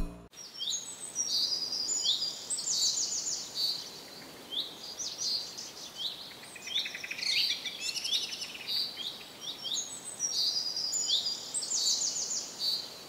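Birds singing: quick, high chirping phrases repeated over and over above a faint steady hiss.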